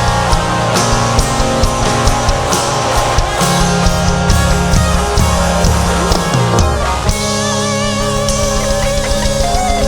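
Rock band playing live: drum kit, bass and electric guitar, taken straight off the mixing desk. About seven seconds in, a held lead line with a wavering vibrato comes in over the band.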